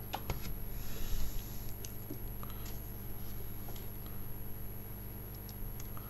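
Room tone of a home voice recording: a steady low electrical hum and a thin high whine, with a soft breath about a second in and a few faint mouth clicks.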